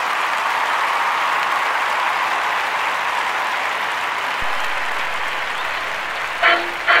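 A large crowd applauding and cheering, swelling at first and then slowly fading. Near the end, two short, loud pitched toots begin.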